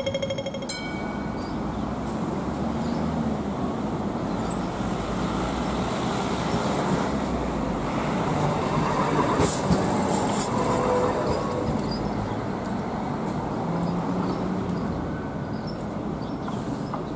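Hong Kong MTR Light Rail car running at close range, a steady rumble of motors and wheels on rail, with a brief sharper screech or clatter from the wheels about ten seconds in.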